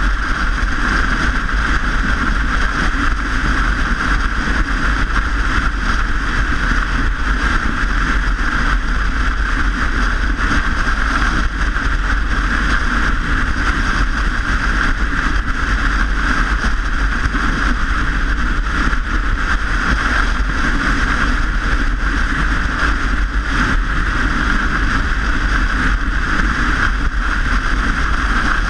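Steady rushing wind and road noise on a microphone carried along on a moving bicycle, loud and unbroken.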